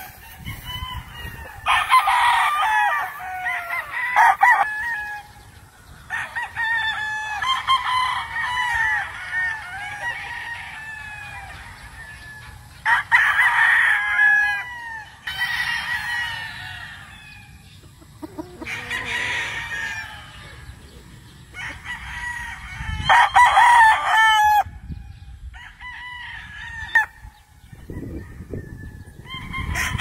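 Several gamecocks crowing over and over, their crows following one another every few seconds and often overlapping. The loudest crows come a couple of seconds in, about halfway, and about three quarters through.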